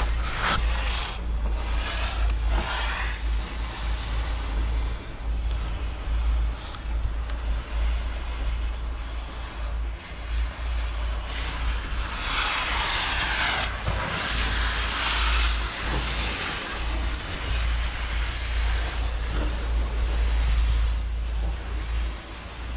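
Wind buffeting the microphone on a moving chairlift: a steady low rumble under a rushing hiss, which swells louder for a few seconds about halfway through.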